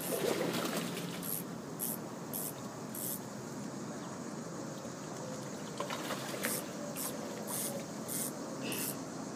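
Insects chirping: short, very high chirps repeating about twice a second in runs, over a steady hiss.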